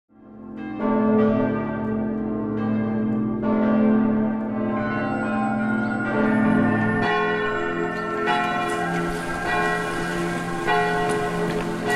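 Church bells ringing: a run of overlapping strikes, each left to ring on, with brighter, higher strikes joining about eight seconds in.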